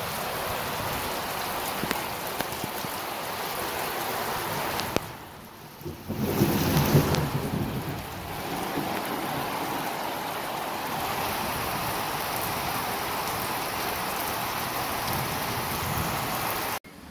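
Heavy rain pouring onto a concrete rooftop, a dense, even hiss. About six seconds in, a louder low rumble swells for a couple of seconds.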